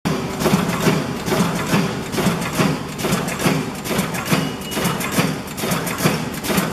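Shopping bag making machine running at speed: a fast, even clatter of repeated mechanical strokes, several a second, over a steady low drone.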